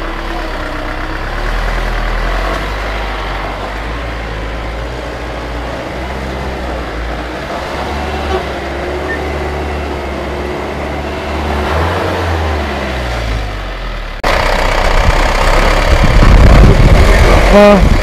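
A motor vehicle's engine running with road noise during a drive, a steady low hum; about 14 s in it abruptly becomes louder and harsher.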